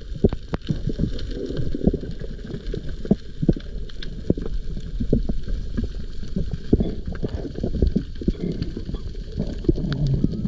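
Muffled underwater water noise picked up by the GoPro in its housing, with many irregular knocks and clicks.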